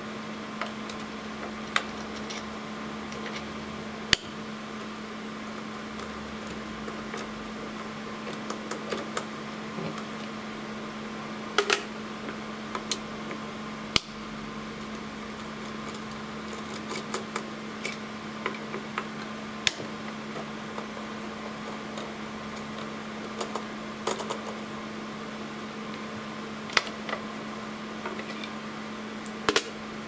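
Irregular sharp clicks and metal clinks from a screwdriver and small steel parts being undone and set down, as the spring-loaded screws and brackets come off an IBM z9 processor module's copper cold plate. A steady hum runs under them throughout.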